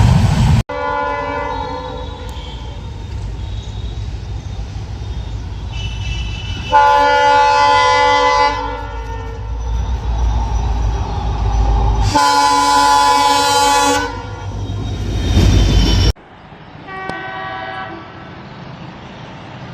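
Indian Railways locomotive air horn sounding over the rumble of a passing train: a long steady blast with louder blasts about seven and twelve seconds in. Near the end a second, fainter horn sounds briefly.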